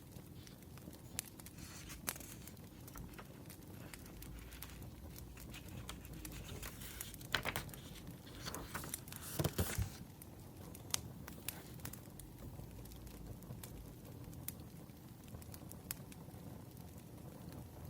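Burning firewood crackling, with scattered sharp pops over a low hiss. In the middle, a few seconds of paper rustling.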